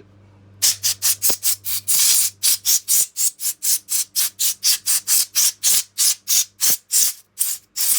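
Compressed air from an air-hose blow gun, fired in rapid short blasts of about three a second, with one longer blast about two seconds in. It is being blown through the passages of an automatic transmission valve body to clear out debris and aluminium particles.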